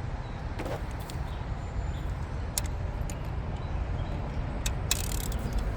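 Steady low background rumble with a few short sharp clicks of hand tools, a spark plug socket being worked on the engine's plugs.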